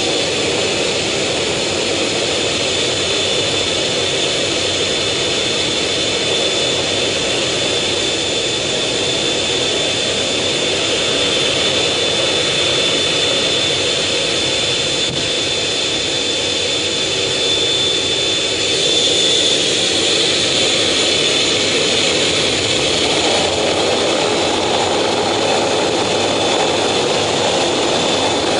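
F/A-18 Hornet's twin jet engines running with a steady high whine over a continuous rush. About twenty seconds in the sound grows louder and fuller, and it does so again a few seconds later.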